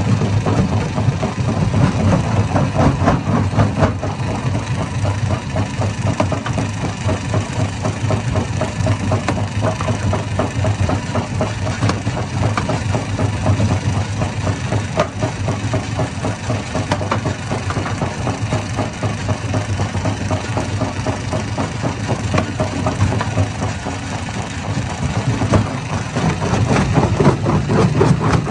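Hammer stone crusher running: a steady heavy engine drone under a dense, continuous rattle and knocking, dipping briefly near the end before picking up again.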